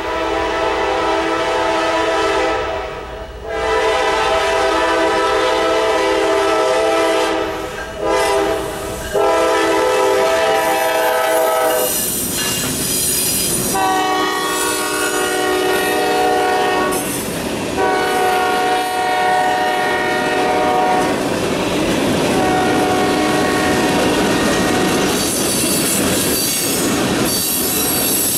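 Diesel freight locomotive horn sounding the grade-crossing pattern, long, long, short, long, as the train reaches the crossing. The horn sounds again in shorter blasts as the locomotives pass, then the tank cars roll by with wheels clattering on the rail joints and a high squeal near the end.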